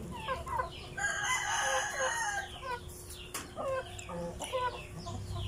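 Chickens clucking in many short calls, with a rooster crowing once from about a second in.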